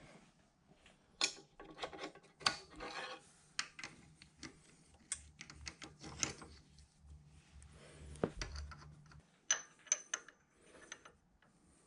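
Irregular clicks, taps and scrapes of steel parts being handled: a square tool bit being fitted and adjusted in a fly cutter mounted in a milling machine spindle, with the mill not running.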